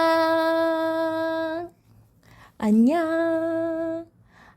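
A high voice sings out a drawn-out greeting, 'annyeong' ('hi'), twice, in sing-song. Each call rises at the start and then holds one long, steady note.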